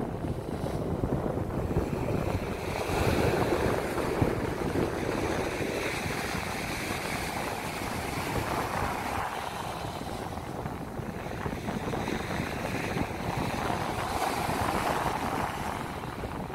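Small ocean waves breaking and washing up a sandy beach, the surf swelling and easing every few seconds, with wind rumbling on the microphone.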